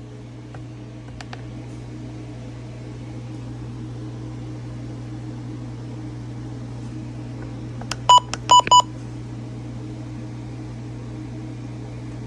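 Steady low electrical hum and faint hiss of weather radio dead air after a broadcast. About eight seconds in it is broken by three short, loud electronic beeps in quick succession.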